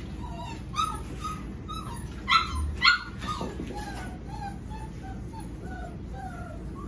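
Seven-week-old golden retriever puppies whining and whimpering in a run of short calls, many falling in pitch, with three louder sharp yips about one, two and a half and three seconds in.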